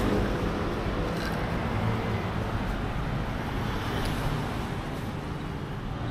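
Road traffic on a city street: a steady rush of passing vehicles that slowly fades over the few seconds.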